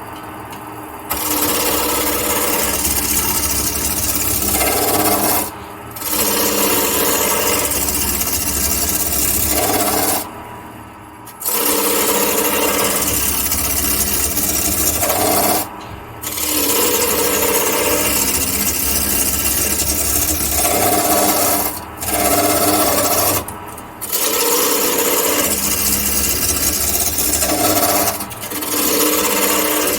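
Turning tool cutting a spinning black walnut and hemlock blank on a wood lathe: a steady scraping as shavings come off, over the low hum of the lathe. The scraping breaks off briefly every few seconds as the tool is lifted from the wood.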